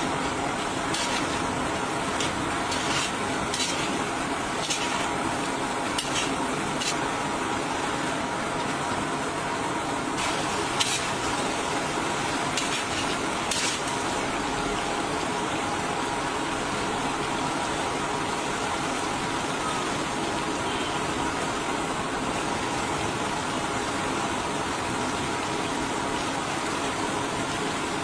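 Chicken and tomatoes sizzling and bubbling in liquid in a large karahi, a steady hiss, with a metal spatula clinking and scraping against the pan a dozen or so times during the first half.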